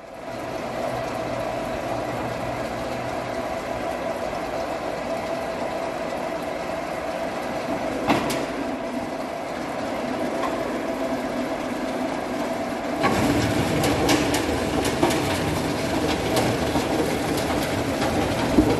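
SL-370 log debarker running with a steady mechanical hum. About thirteen seconds in it grows louder with a rapid rattle of knocks and crackles as a log is fed through and its bark is stripped off.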